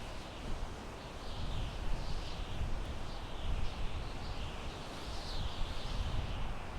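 Wind blowing through pine trees: a steady rushing hiss that swells and eases in gusts, with low rumble in the gusts. Faint high chirps repeat every half second or so.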